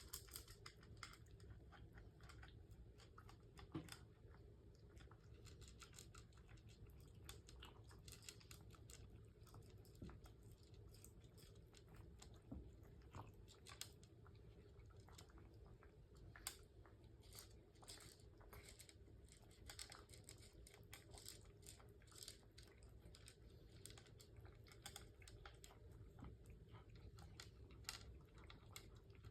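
Cats chewing and crunching their breakfast, a steady run of faint, quick crunches.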